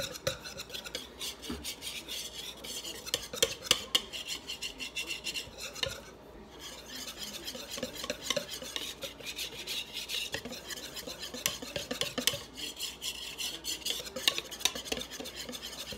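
Wire whisk beating corn dog batter in a large mixing bowl: a fast, continuous run of clicking and scraping against the bowl, with a brief pause about six seconds in. The batter is being whisked until smooth.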